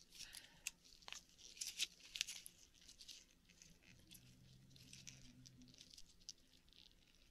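Faint scattered clicks and crinkling from hands opening an akoya oyster to get at its pearl, busiest in the first few seconds.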